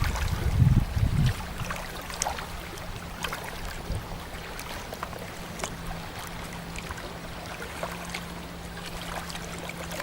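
Wind buffeting the microphone for about the first second, then water lapping gently at the shore, with small ticks over an even hiss. A steady low hum sets in as the wind drops.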